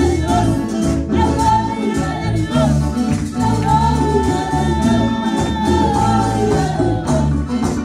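Live church band playing an upbeat Latin-style hymn chorus: electric bass, drum kit and keyboard in a steady rhythm, with shaker-like percussion and a singer's voice carried over it.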